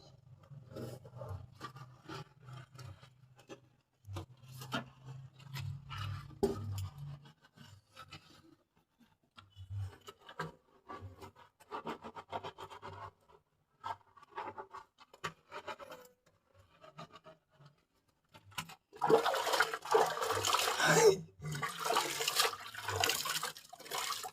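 Scrubbing and rubbing sounds during washing, then water poured and splashing loudly for several seconds near the end.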